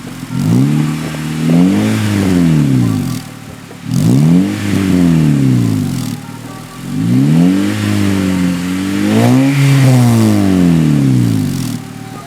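2014 Honda Civic Si's 2.4-litre four-cylinder engine free-revved several times through an aftermarket DC Sports exhaust, the pitch climbing and falling back with each blip, the last two revs run close together near the end.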